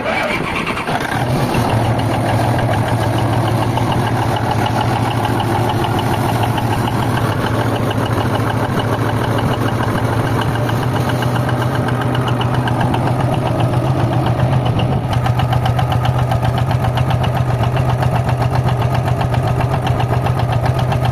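Cold six-cylinder diesel engine starting and settling into a steady idle with a rapid, even clatter. The mechanic afterwards finds three of its six injectors not firing, their exhaust ports staying cold.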